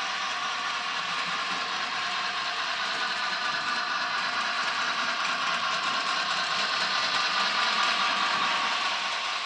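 HO scale model freight train rolling past behind a Bachmann Spectrum 2-6-0 locomotive: a steady clatter of small wheels on the track with a faint hum, a little louder as the last cars come by near the end.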